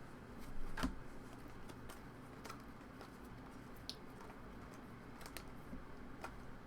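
Faint handling of trading cards, with a few soft, scattered clicks and taps.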